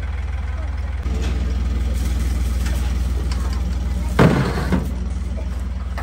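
A low engine running steadily at idle, with a couple of brief voices about four seconds in.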